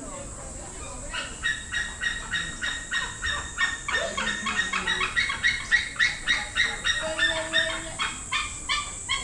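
An animal calling in a rapid, even series, about three or four calls a second, for some eight seconds. The calls start about a second in and swell before fading near the end.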